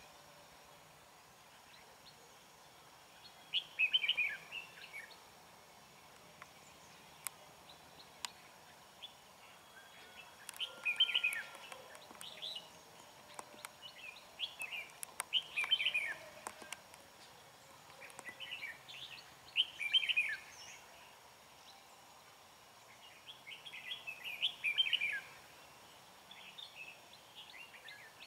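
Red-whiskered bulbuls singing: short, bright warbled phrases about a second long, repeated every few seconds, the competitive challenge song between a caged decoy bulbul and wild ones.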